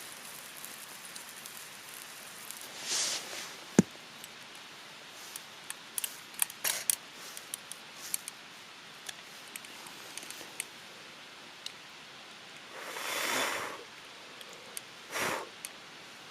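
Someone handling things at a campsite: rustling or scraping three times, scattered sharp clicks and one loud knock about four seconds in, over a steady hiss.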